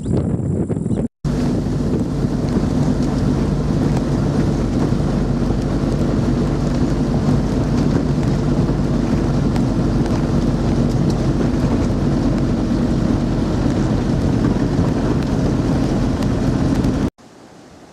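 Inside a vehicle's cabin on a gravel road: the engine hums steadily under constant tyre and road noise. It starts about a second in and cuts off near the end.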